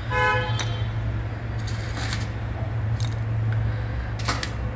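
Metal kitchen tongs clicking and tapping while food is lifted from an air fryer basket onto a glass plate: a few separate light clicks over a steady low hum.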